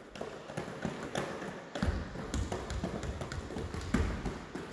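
Irregular taps and slaps of hands on basketballs as several players pass the balls around their legs, with low thuds on a wooden floor from about two seconds in.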